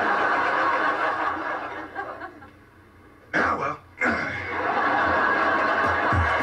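Sitcom studio audience laughing at a punchline. The laughter dies down about two seconds in, a short vocal outburst with falling pitch cuts in a little after three seconds, and the laughter swells again afterwards.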